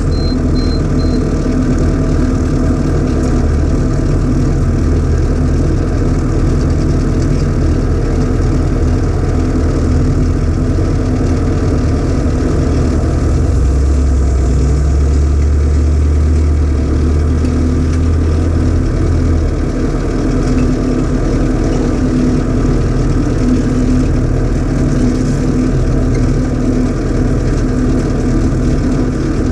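Tractor engine running steadily, driving a PTO-powered post hole auger that bores into the soil. The engine's low drone grows heavier for about six seconds midway, then eases.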